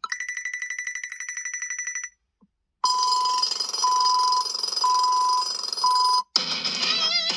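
Google Pixel 7a ringtones playing in turn. First a fast trilling ring, about ten pulses a second, for two seconds. After a short silence comes a ringtone of four evenly spaced beeps, then near the end the start of another ringtone with wavering tones.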